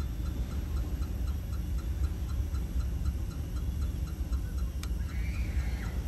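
Steady low machinery rumble with a faint, regular ticking of about four ticks a second, and a single sharp click near the end.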